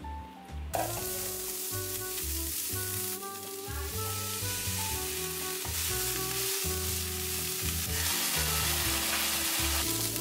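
Rice, chickpeas, celery and baby spinach sizzling in olive oil in a frying pan while being stirred. The sizzle starts about a second in. Background music plays underneath.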